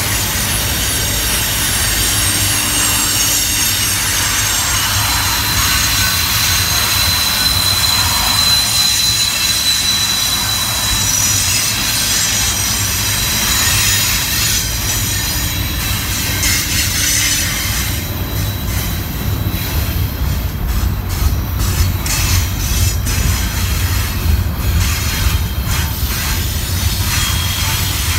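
Double-stack intermodal well cars rolling slowly past on steel wheels, a low rumble under high, steady wheel squeal. About two-thirds of the way through, the squeal thins out and a run of irregular clicks and clunks from the wheels on the rails takes over.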